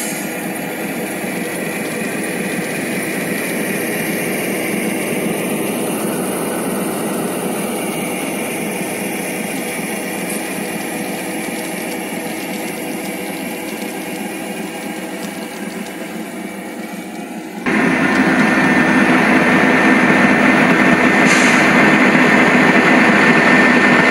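Model diesel locomotive's onboard sound running steadily as the train rolls along the track, with no deep bass, as from a small speaker. About two-thirds of the way through, the sound switches abruptly to a louder, brighter engine sound.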